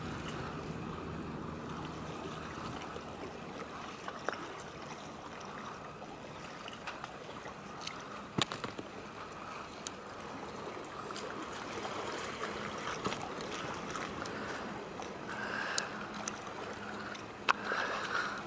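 Water lapping and trickling against the boat and the rocks, a steady low wash, with a few scattered small clicks and knocks.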